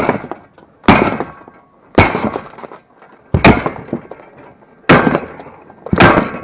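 Sledgehammer blows knocking wood off a metal frame, six heavy strikes about a second apart, each a sharp crack of splintering wood and metal that trails off briefly.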